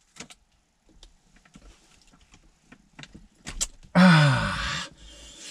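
Faint scattered clicks and handling noises from a paper food pouch and plastic spoon, then about four seconds in a man's loud wordless exclamation that falls in pitch.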